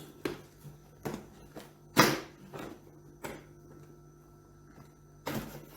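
Cardboard box and packaging handled as a wax warmer is pulled out of it: a series of short rustles and knocks, the loudest about two seconds in and another pair near the end.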